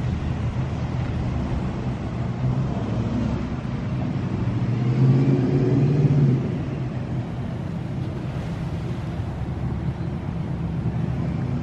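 Truck engines running as the trucks drive past, swelling louder about five to six seconds in.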